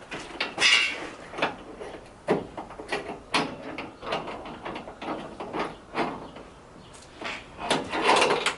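Parts of a vending machine's mechanism being handled and worked loose by hand: a string of irregular clicks, knocks and scrapes, with a longer rattling scrape near the end.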